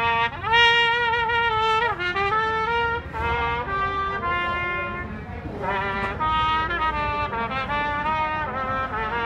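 Solo trumpet playing a slow melody of held notes. It opens with a long, loud note of about a second and a half, then moves through shorter notes stepping up and down.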